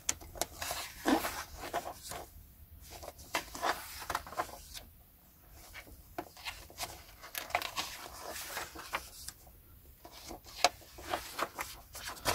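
Hardback books in paper dust jackets and thin magazines being handled: irregular rustling, rubbing and light taps as they are picked up, turned over and set down.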